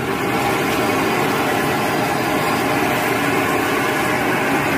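Blower motor running steadily, driving air through a clear tube fitted with two swirl-making intake inserts: a steady motor whir with a rush of air.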